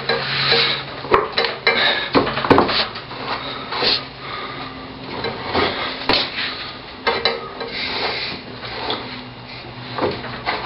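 Irregular metallic clinks, knocks and scraping as a motorcycle wheel, its axle and spacers are worked into place.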